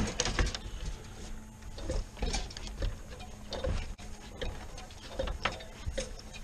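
Irregular knocks and rattles of someone climbing down a ladder while carrying a wire cage live trap: boots on the metal rungs and the trap's wire mesh clattering against the ladder.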